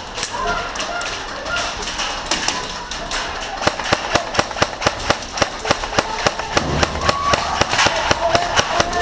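Airsoft guns firing in a rapid string of sharp snaps, several a second, growing denser from about three and a half seconds in.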